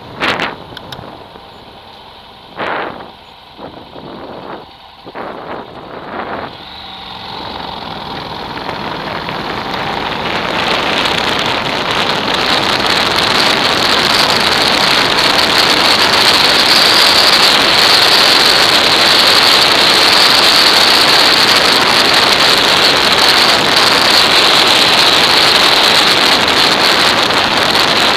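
Wind noise on a motorcycle's action-camera microphone during a ride. There are a few short gusts at first, then a rush that builds over several seconds into a steady, loud noise as the bike gathers speed.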